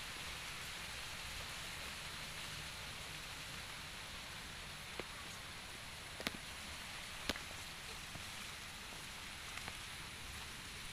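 Steady outdoor hiss with a few sharp clicks or taps near the middle, about a second apart.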